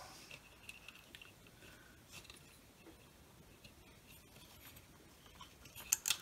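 Faint handling noises: a small circuit board and small parts moved about by hand on a bench mat, with light scattered ticks and a few sharper clicks near the end.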